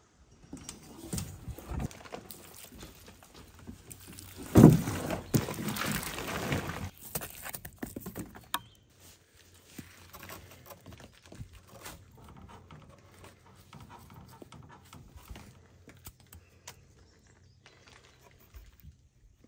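Hand bricklaying: mortar being worked onto old brickwork by hand and with a trowel, giving scattered knocks, clicks and scrapes. A louder knock with a scraping rush comes about four and a half seconds in; after that the handling is quieter.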